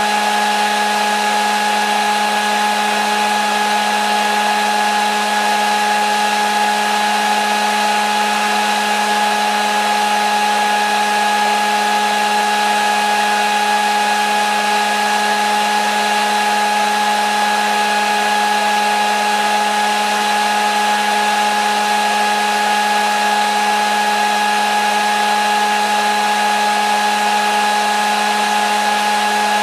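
Hair dryer running continuously: a steady rush of blown air with a constant motor whine, used as white noise for a sleeping baby.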